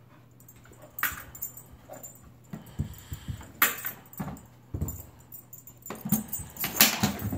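A dog nosing and pushing at a plastic iFetch automatic ball launcher, with scattered light knocks and clicks and her collar tags jangling. The tennis ball is being dropped into the launcher's hopper, and the sharpest knocks come near the end.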